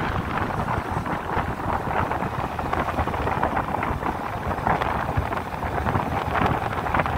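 Wind rushing over the microphone on a moving motor scooter, with the scooter's road and engine noise beneath it.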